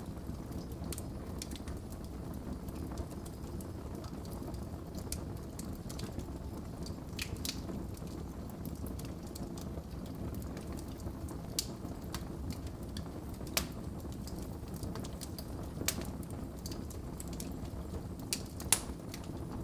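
Wood fire crackling: a steady low rumble of burning logs with sharp, irregular pops, the loudest one near the end.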